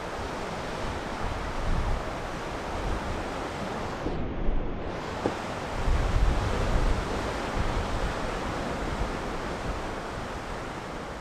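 Lake surf breaking and washing in a steady rush, with wind gusting on the microphone in low rumbles.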